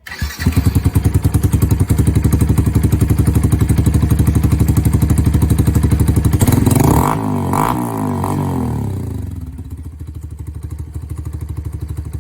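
Yamaha FZ V2's single-cylinder engine running loud through an aftermarket free-flow exhaust, a copy of an Akrapovic silencer, with a fast, even beat of exhaust pulses. About six and a half seconds in the pitch swings up and down for a couple of seconds, then the engine settles back to a quieter steady run.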